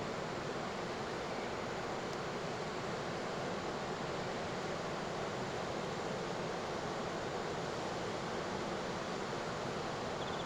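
Steady wash of heavy ocean surf breaking, an even noise with no single wave standing out.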